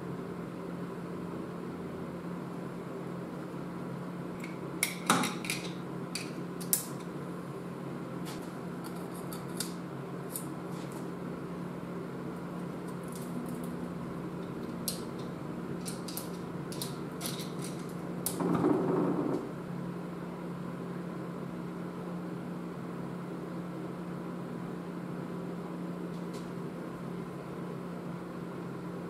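Metal transfer case parts clicking and clinking as they are handled and slid onto the output shaft during reassembly, in scattered light taps with two sharper knocks, over a steady hum. About eighteen seconds in comes a brief scraping noise of about a second and a half, the loudest stretch.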